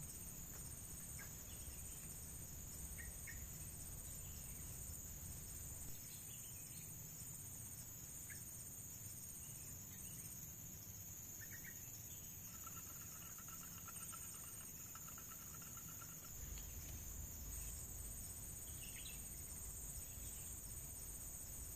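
Dusk insect chorus: a steady high-pitched drone with a faster pulsing chirp running through it. A few faint short chirps and a brief trill come about halfway through, over a low rumble.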